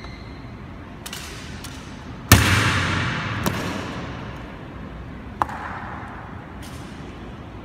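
Ceremonial honour guard drill: one loud stamp or clack a little over two seconds in, echoing for about two seconds in the marble hall, with lighter clacks and taps before and after.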